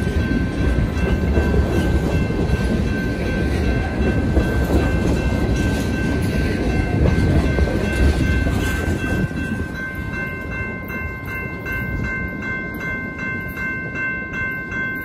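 A train rolling past with a heavy rumble and wheel clatter that eases after about ten seconds. A grade-crossing bell rings steadily over it, its even strikes standing out more clearly once the rumble drops.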